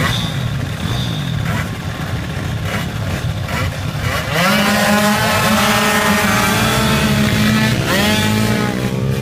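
Several racing scooter engines running on the start grid. About four seconds in they rev hard and pull away, their pitch climbing in repeated rising sweeps as they accelerate off the line.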